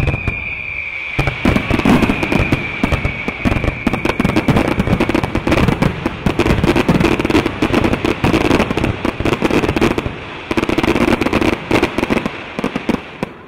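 Fireworks finale: a dense, rapid barrage of aerial shell bangs and crackling, over a steady high-pitched hiss of ground fountains that slowly drops a little in pitch. The barrage dies away near the end.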